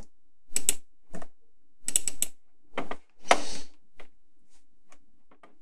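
Computer keyboard keys and mouse buttons clicking in a handful of separate short clatters, one longer clatter about three seconds in, then a few faint ticks near the end.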